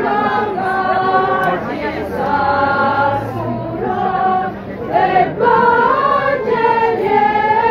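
A choir singing a hymn, several voices holding long notes together and moving from note to note, with a brief dip about four and a half seconds in.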